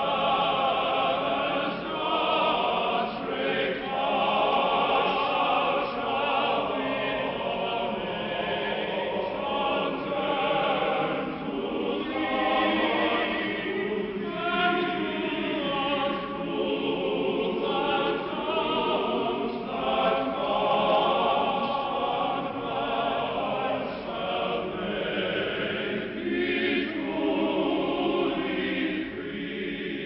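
Male military choir singing a slow sustained choral piece, many voices in harmony.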